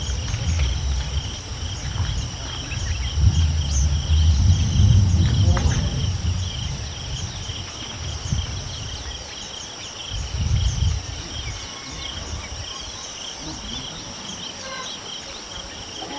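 Steady shrill chorus of insects, two high pulsing tones running unbroken. Low rumbling noise comes and goes in gusts, loudest from about three to six seconds in and again briefly around ten seconds.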